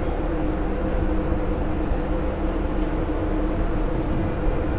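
Steady mechanical hum over a low rumble, a few constant tones held without change: a ship's engines and machinery heard from on deck.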